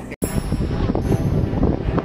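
Wind buffeting the microphone on a small open boat at sea: a loud, gusty rumbling rush that starts abruptly about a fifth of a second in, replacing a steadier hum of ship machinery.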